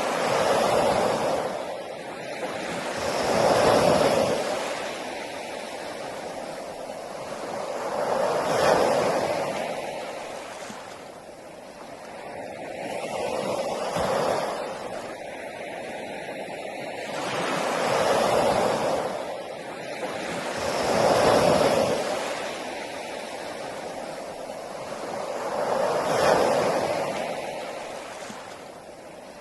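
Ocean waves breaking on a beach, each one swelling and washing out in turn, with about seven surges arriving every four to five seconds.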